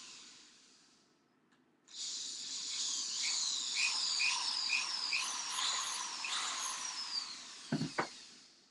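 Cordless drill/driver spinning in short runs on small screws in a wooden cat-door frame, its high motor whine sliding up and down in pitch. It winds down in the first second, starts again about two seconds in, and stops after two sharp clicks near the end.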